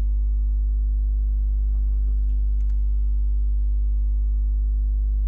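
Steady electrical mains hum on the recording, low-pitched with a stack of evenly spaced overtones. A few faint computer-keyboard clicks come about two and a half seconds in.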